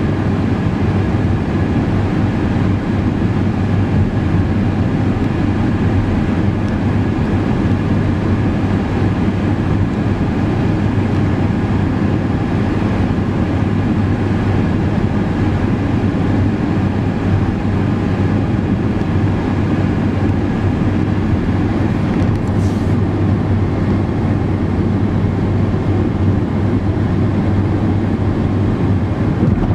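Steady road noise inside a car cruising on a highway: a low engine and tyre drone with an even rush of air and road hiss.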